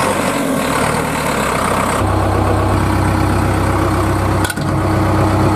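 Engine sound effect of a tractor idling: a steady low drone that grows stronger about two seconds in.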